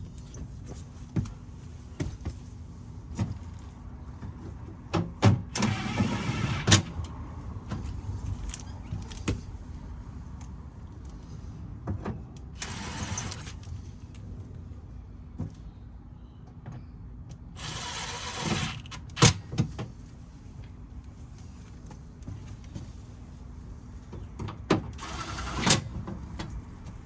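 A small electric motor whirring in four short bursts of about a second each, among sharp clicks and knocks of handling.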